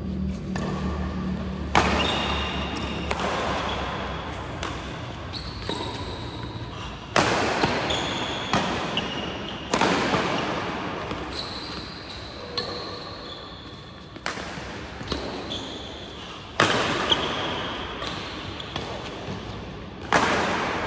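Badminton rackets striking a shuttlecock in a fast doubles rally: sharp hits about once a second, each ringing on in a large echoing hall, with short shoe squeaks on the court floor between shots.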